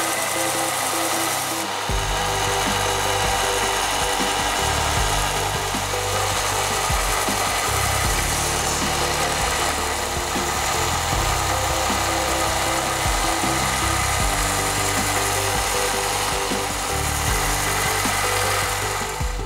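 Belt sander running steadily, its abrasive belt grinding the edge of a brass clock frame pressed against it. Background music plays underneath.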